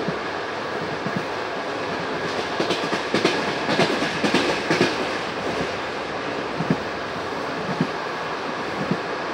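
Passenger coach wheels rolling along the track: a steady rumble with a quick run of clickety-clack beats over rail joints a few seconds in, then a few single knocks.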